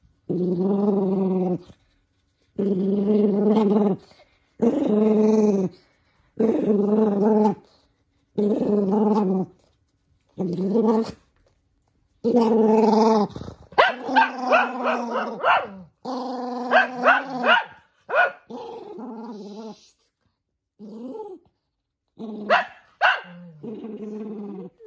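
Toy poodle growling angrily at having socks put on its paws: a string of pitched growls, each about a second long, one every two seconds or so. From about halfway through the growling gets louder and more broken, with sharp bark-like outbursts.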